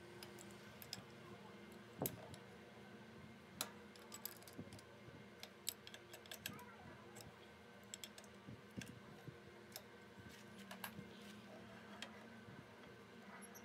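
Scattered light metallic clicks and clinks of an adjustable wrench and steel fixture parts being handled on a drill press table, over a faint steady hum.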